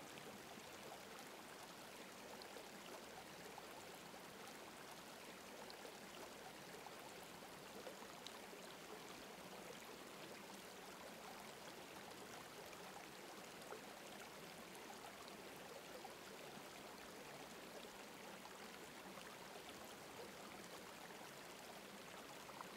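Near silence: a faint, steady hiss with no events in it.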